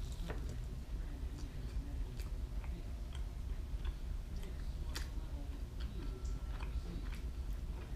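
A man bites into and chews a sticky caramel-glazed chicken wing close to the microphone, with irregular small clicks and smacks of the mouth, over a steady low hum.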